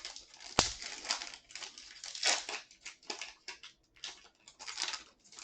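Trading-card pack wrapper torn open and crinkled by hand, in a string of short crackling bursts with a sharp click about half a second in.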